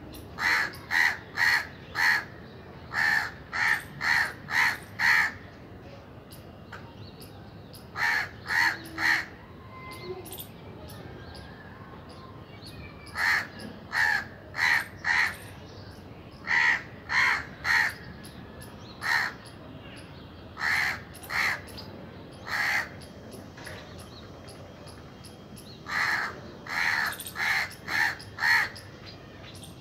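A crow cawing over and over in runs of three to five short, loud caws, with pauses of a few seconds between runs.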